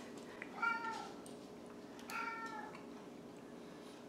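Pet cat meowing twice, faintly, each meow rising and falling in pitch.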